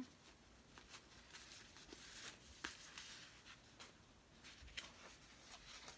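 Faint rustling and a few small ticks from a paper-wrapped roll of pre-cut cotton fabric being turned in the hands and opened; otherwise near silence.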